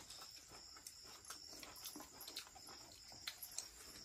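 Faint eating sounds: hands mixing rice on steel plates, with soft scraping and a few light clicks, two of them sharper about three seconds in.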